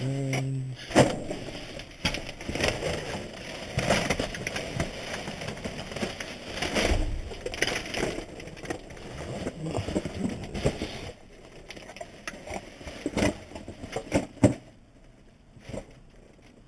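Rummaging through trash in a dumpster: plastic bags crinkling, cardboard boxes scraping and items knocking as they are shifted, busy for about eleven seconds, then quieter with a few separate knocks.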